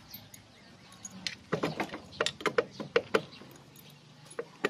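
A quick, irregular run of sharp metallic clicks and clinks, about eight of them over two seconds starting a second and a half in, from hand tools working on the side cover of an SYM motorcycle engine as it is loosened for removal.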